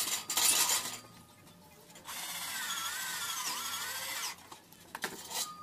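Electric drill drilling into steel angle: a short burst at the start, then a steady run of about two seconds in which the motor's whine dips and recovers as the bit bites into the metal, and a few brief bursts near the end.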